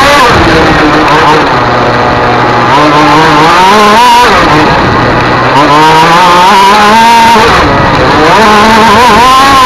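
Racing engine running hard, its pitch climbing steadily and then dropping sharply three times, about a third of a second in, about four seconds in and about seven and a half seconds in.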